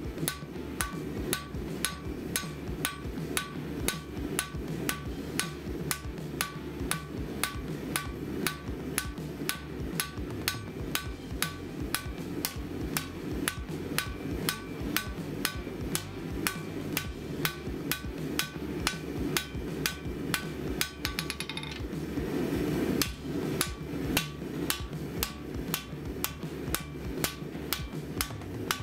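Hand hammer striking a red-hot 5160 steel blade on an anvil in steady forging blows, about two a second, each blow ringing. There is a brief break partway through, and a steady low rumble runs underneath.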